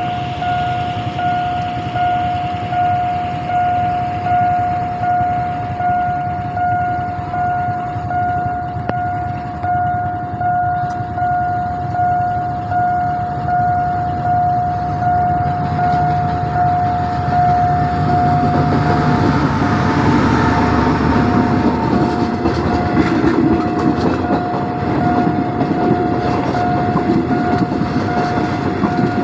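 Railway level-crossing warning alarm sounding a steady ringing tone that pulses about once a second. From about eighteen seconds in, a diesel-hauled passenger train draws up and passes through the crossing, its locomotive and wheels on the rails growing louder over the alarm.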